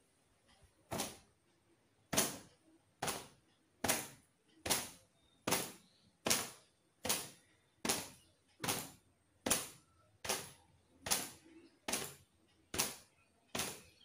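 A towel slapping against long wet hair in a steady rhythm: about sixteen sharp whacks, roughly one every 0.8 s, starting about a second in.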